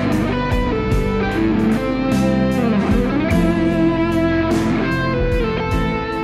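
Strandberg Boden OS 7 seven-string headless electric guitar playing a sustained lead melody, with a pitch slide near the middle.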